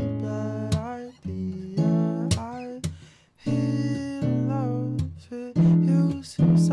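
Acoustic guitar chords struck one at a time and left to ring, with a dip near the middle, and a male voice singing softly over them.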